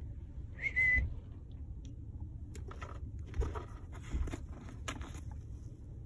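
Congo African grey parrot giving one short whistle, followed by a few seconds of sharp clicks and crackles as it works with its beak.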